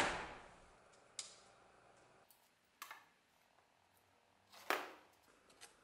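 A handful of sharp clicks and knocks from handling the metal clip and wires of an electrolysis tank: a loud knock at the start, then single clicks about one, three and nearly five seconds in, the last of them louder, with a faint double click near the end.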